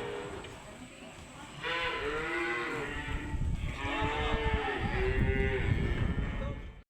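Dairy cows mooing: two long calls one after the other, starting about a second and a half in. The sound cuts off suddenly near the end.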